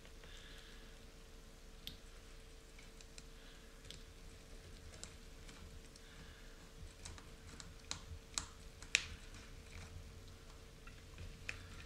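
Small metal parts and a hand driver clicking and tapping against an aluminium RC car chassis during assembly: scattered light clicks, with a few sharper ones about two-thirds of the way through, over a faint steady hum.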